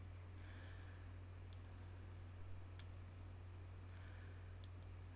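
A few faint computer mouse clicks, about a second or so apart, as points of a freehand selection are placed. They sit over a steady low hum.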